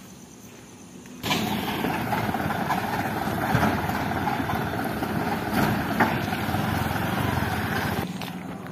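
Small box truck's engine running close ahead on the street, a loud steady noise that starts abruptly about a second in and stops suddenly near the end.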